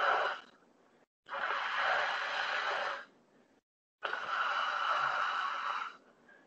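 A man breathing deeply and forcefully through a wide-open mouth in a postural breathing exercise. One breath ends about half a second in, then two more follow, each lasting about two seconds, with near silence in between, heard over a video call.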